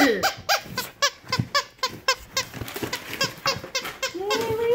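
Plush dog toy's squeaker being squeezed over and over in quick succession, about four squeaks a second, each a short rising-and-falling chirp. Near the end comes one longer, lower drawn-out squeal.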